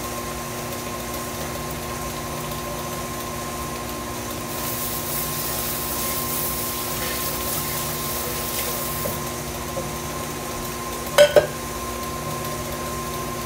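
Stand mixer's electric motor running steadily at speed, beating cake batter. About eleven seconds in come two sharp metallic clanks as a metal cake pan is set down on the counter.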